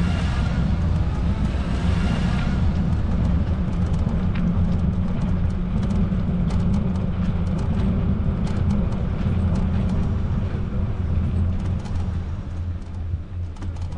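Wind buffeting the camera microphone, heard as a steady low rumble, with a whine rising in pitch over the first two seconds and a few light clicks later on.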